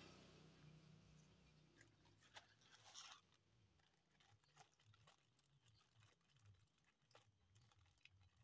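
Near silence with faint crinkling and rustling and a few soft clicks, from a small plastic packet being handled.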